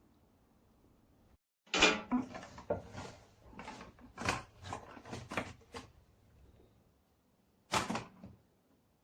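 Groceries being packed into a fridge: a run of irregular rustling and knocking as items are handled and set down, then a single louder knock near the end.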